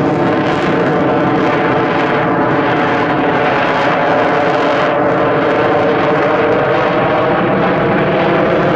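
General Dynamics F-16AM Fighting Falcon jet fighter flying a display, its Pratt & Whitney F100 turbofan giving a loud, steady jet roar.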